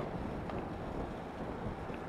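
Steady wind rumble on the microphone over open-air ballpark noise, with a couple of faint distant clicks about half a second in and near the end.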